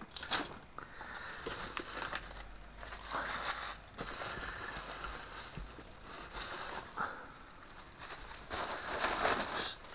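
Handling noises: objects and cables being moved about and rummaged through, with irregular rustling, scraping and a few sharp clicks, over a faint low hum.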